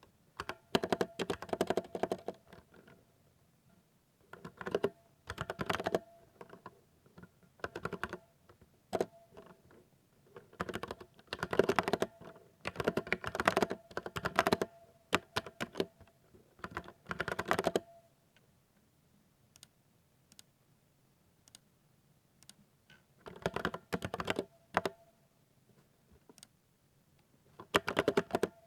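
Typing on a 60% mechanical keyboard: quick runs of key clicks in bursts of a second or a few seconds, broken by short pauses and one longer pause of about five seconds past the middle.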